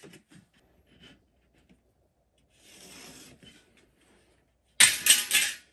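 Light rubbing and scratching on a galvanized sheet-metal sheet as a cut line is drawn along a metal strip, then near the end a loud, rattling metallic clatter lasting under a second.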